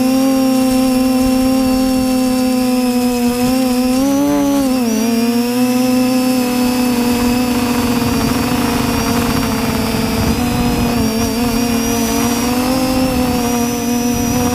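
TBS Discovery quadcopter's electric motors and propellers whining, heard from the onboard camera; the pitch rises briefly about four seconds in, then drops and wavers as the throttle changes. A low rushing of wind on the microphone comes in about halfway through as it flies faster.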